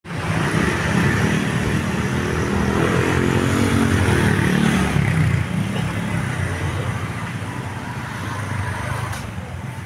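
A bus engine running loudly close by, its pitch easing slightly downward about five seconds in, then fading away.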